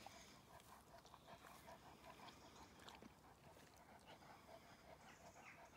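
Near silence with a faint, quick rhythmic chewing: a German Shepherd dog chewing on an apple.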